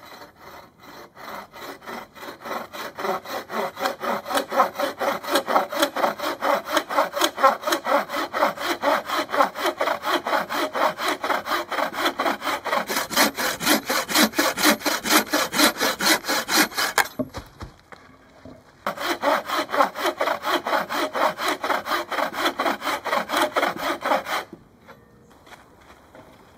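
Hand saw cutting through a log of firewood with quick, even back-and-forth strokes; the sawing pauses briefly about two-thirds of the way in, resumes, then stops shortly before the end.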